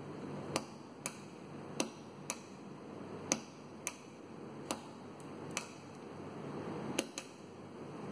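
Sharp, short clicks of a manual clock pulse switch being pressed by hand, about ten at uneven intervals, several in quick pairs, over a low steady background hiss.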